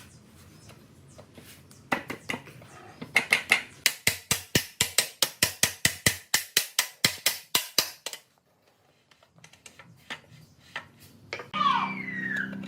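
A quick run of about twenty sharp metal clicks, about four a second, then a few fainter ticks. Near the end, a dog whining in high gliding cries.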